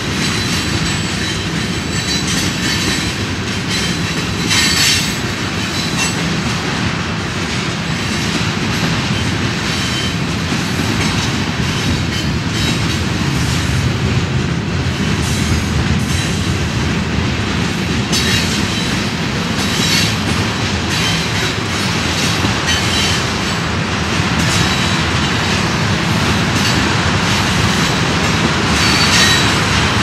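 Freight train tank cars and flatcars rolling past: a steady rumble of steel wheels on rail with clacking over the rail joints, and brief high-pitched wheel squeals a few seconds in, about two-thirds through and near the end.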